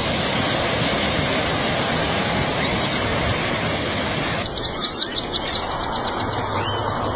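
Dense, continuous din of a huge flock of birds calling all at once. About four seconds in it switches abruptly to a quieter scene with separate high chirps.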